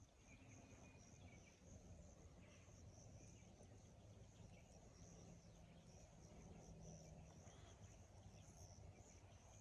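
Near silence, with a faint steady high-pitched hiss.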